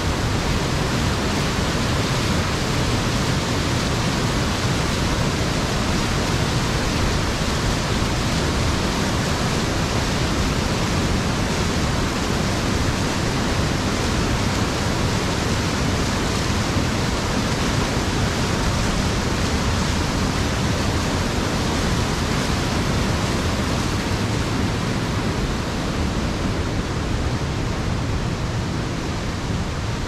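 Loud, steady rush of a waterfall pouring over rocks in a stream.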